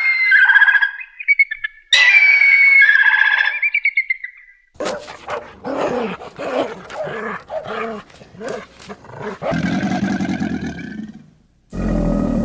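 Animal calls: high, whining, yelping calls for the first few seconds, then a run of rhythmic low grunting calls, with a new low call starting near the end.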